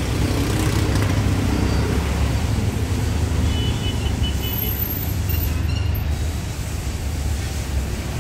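Steady low outdoor rumble, with a few faint high tones about halfway through.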